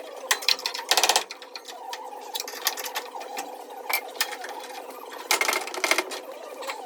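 A saw cutting through the rusty steel outer sill panel of a car body: a steady rapid rasping, louder about a second in and again near the end.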